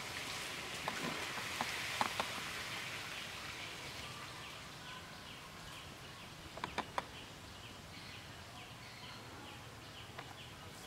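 Forest ambience: a steady hiss, with a bird or insect repeating short high chirps about twice a second through the second half, and a few sharp ticks near the start and near the middle.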